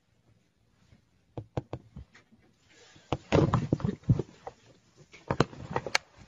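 Irregular knocks and taps: a few single sharp ones early, then a busier run of them about three seconds in, and a few more near the end.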